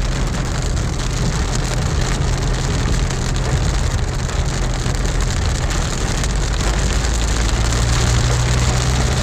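Heavy rain pelting the roof and windshield of a moving car, heard from inside the cabin as a dense, even hiss over the steady low hum of the car on the wet road.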